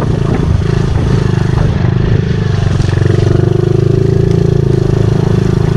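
Honda CRF50 pit bike's small single-cylinder four-stroke engine running under throttle while ridden, its pitch rising a little in the middle and then settling.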